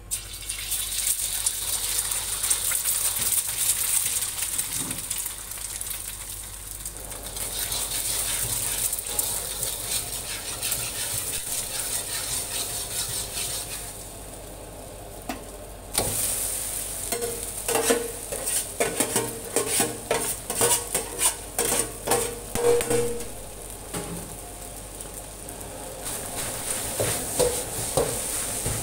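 Beaten eggs poured into hot oil in a wok, sizzling at once, then stirred with a metal ladle. About halfway through the sizzle drops as cooked rice goes in, and the ladle then clacks and scrapes against the wok many times as the rice is stir-fried.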